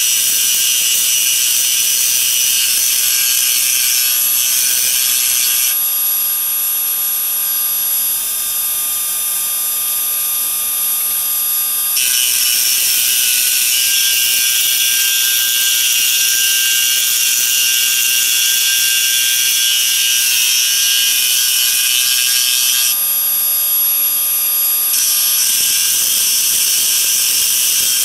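Harbor Freight 40939 6x26 milling machine running and cutting metal: a steady, high-pitched machining whine that shifts in tone several times as the cut changes.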